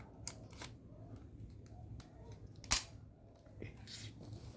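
Mechanical clicks from handling a spring airsoft pistol (a modified D-Cobra M306 TEC-9 style gun): a few small clicks in the first second, then one sharp, loud click a little under three seconds in.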